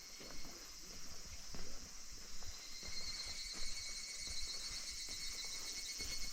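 Higurashi (evening cicadas, Tanna japonensis) calling in a chorus: a high, rapidly pulsed trill that grows stronger about two and a half seconds in. Faint low knocks come and go underneath.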